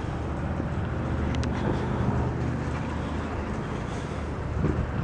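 Steady low rumble of a vehicle engine running, with a small click about a second and a half in.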